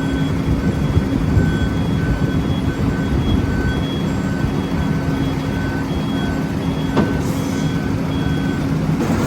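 Back-up alarm on heavy road-works machinery beeping steadily about twice a second over the low rumble of a diesel engine. There is a single sharp knock about seven seconds in.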